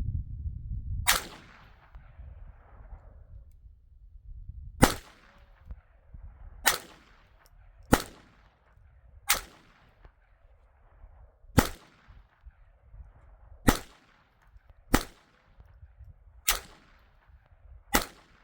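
Ten single gunshots fired at an unhurried pace, about one to four seconds apart, each cracking sharply and trailing off in a short echo. A low rumble fills the first second before the first shot.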